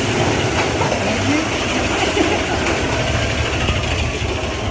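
Big Thunder Mountain Railroad mine-train roller coaster running along its track, heard from a seat on board: a steady rumble and rattle with rushing air.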